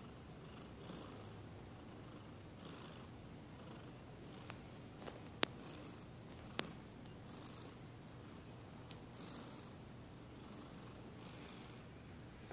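Domestic cat snoring softly in its sleep, one faint rasping breath about every two seconds. Two sharp clicks sound midway, about a second apart.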